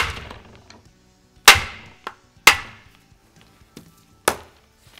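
Rawhide mallet rapping a rifle to break the barreled action free of its cured Acraglas glass bedding: three sharp raps in the first three seconds, each with a brief ring, then a lighter knock near the end.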